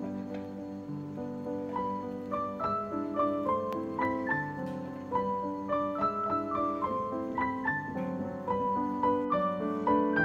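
Background piano music: a gentle melody of plucked-sounding notes played over held chords.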